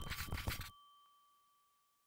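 A bell-like ding rings on as a steady high tone, slowly dying away. A clattering noise underneath cuts off abruptly a little under a second in.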